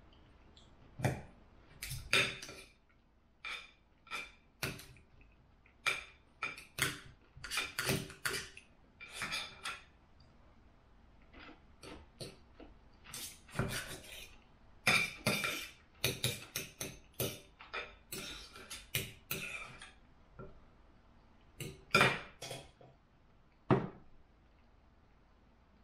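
Knife and fork clinking and scraping on a dinner plate while cutting and eating a meal: irregular clicks and scrapes, some ringing briefly, in clusters with short pauses.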